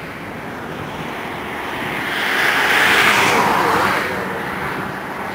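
Distant Airbus A320 jet engines rumbling as the airliner climbs away after takeoff, with a rushing noise that swells and fades over about two seconds in the middle.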